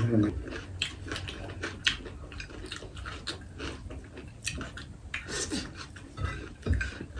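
Close-up eating sounds from two people eating with their hands: chewing and mouth noises, heard as many short, irregular clicks and crunches, with fingers working rice and vegetables on plates.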